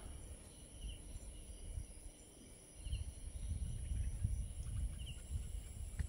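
Insects droning steadily at a high pitch, with a short chirp repeating about every two seconds. A low rumble joins about halfway through.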